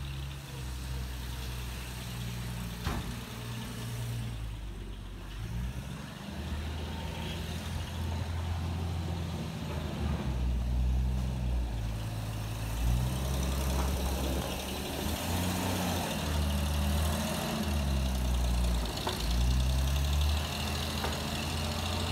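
1936 Chevrolet pickup truck's engine running as the truck drives slowly past, a low uneven rumble that grows louder in the second half as it comes close.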